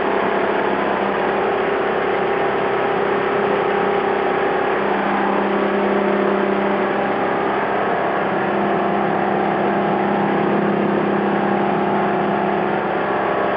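Volvo Penta AQ205A four-cylinder petrol marine engine running steadily with a freshly rebuilt top end, its pitch shifting slightly about five seconds in. It sounds healthy and fairly quiet.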